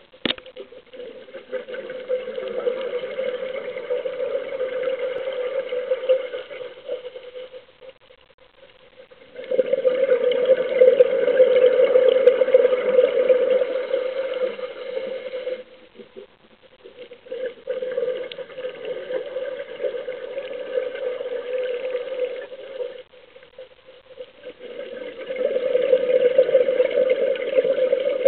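A scuba diver breathing through a regulator, heard underwater: four long exhalations of rushing, bubbling noise, each a few seconds long, with short quiet pauses between them.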